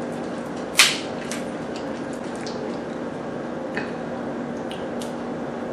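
Cooked lobster shell being cracked and pulled apart by hand: wet squishing with short snaps, a sharp crack just under a second in and a smaller one nearly four seconds in, over a steady low hum.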